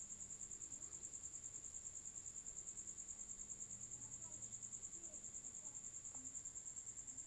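A cricket trilling steadily in the background: a faint, high, rapidly pulsing chirp that keeps going without a break.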